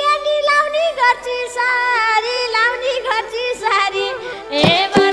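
Nepali folk band playing an instrumental interlude: a bending, ornamented melody line over held keyboard notes, with madal drum strokes coming in near the end.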